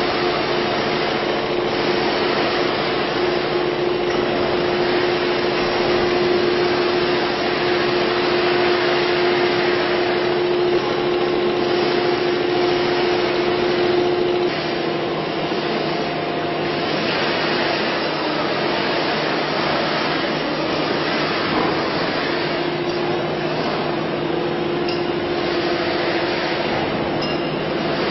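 Electric overhead crane motors running, a steady whine over a hiss of factory machinery. About halfway through the whine changes and the level drops slightly.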